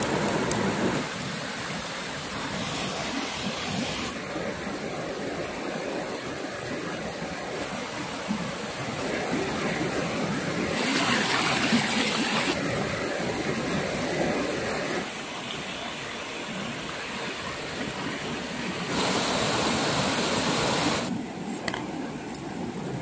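Shallow rocky stream rushing over boulders: a steady wash of flowing water that grows louder or softer every few seconds.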